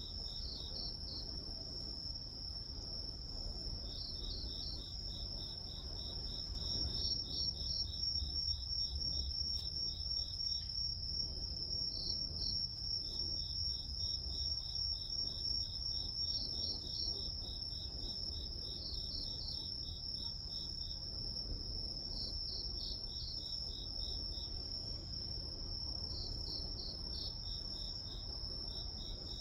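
Crickets and other grass insects chirping as a night chorus. One insect holds a continuous high trill while others add rhythmic pulsed chirps that come and go in trains, over a low steady rumble.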